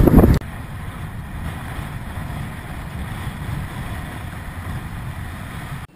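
Wind rushing over an action camera's microphone on a moving road bicycle: loud buffeting that cuts off abruptly under half a second in, then a steadier, quieter rush of riding noise.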